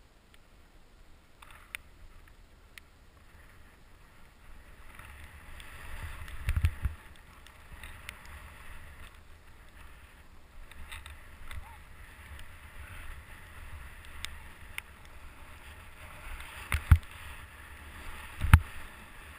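Skis or snowboard sliding and turning through powder snow, a steady hiss that rises and falls with the turns. Three heavy thumps stand out, one about a third of the way in and two near the end.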